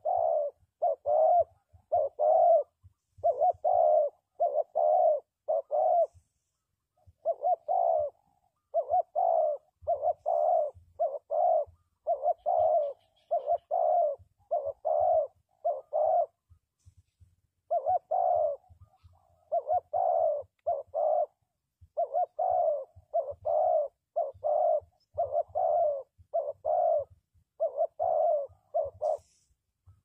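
Spotted dove cooing: short, mellow coo notes repeated about twice a second in long runs, with brief pauses between runs.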